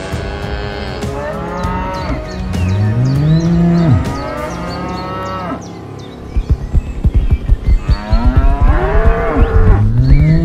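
Cattle mooing in several long calls that rise and fall in pitch, one of them a deep bellow. Then, from about six seconds in, a fast run of hoofbeats as the animals gallop, with more mooing over it near the end.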